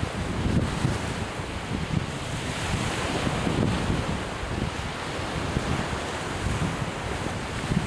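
Strong wind buffeting the microphone in uneven gusts, over steady surf on a beach.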